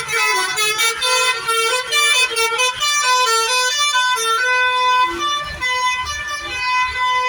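Indonesian telolet bus horns playing a quick melodic tune of stepped, pitched tones, loud and continuous.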